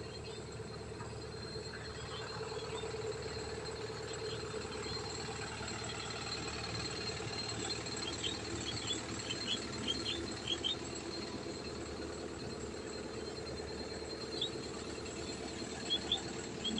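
Hitachi hydraulic excavator's diesel engine running steadily, with a series of short high squeaks in the middle and again near the end.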